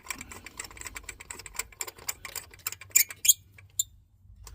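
Rapid, irregular light metallic clicking from a spark plug socket and extension as a new spark plug is turned down by hand into the cylinder head, stopping about three seconds in.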